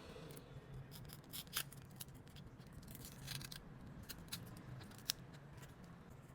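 Scattered light clicks of small hand tools handling an iPhone 15 Pro Max during a back-glass replacement, with a sharper click about five seconds in, over a low steady hum.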